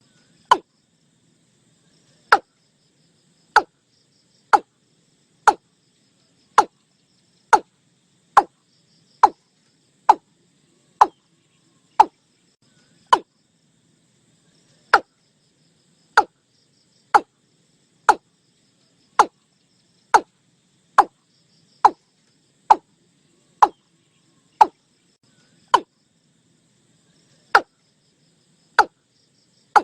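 Watercock (Gallicrex cinerea) calling: a long series of short, sharp notes, each falling in pitch, about one a second, with a couple of longer pauses.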